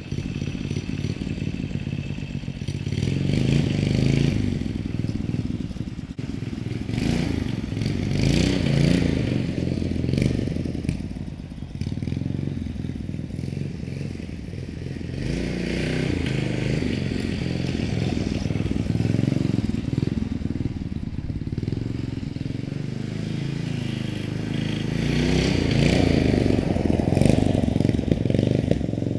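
212cc single-cylinder engine of a CVT off-road mini bike running under load during a ride, its revs rising and falling over and over as the throttle is opened and eased.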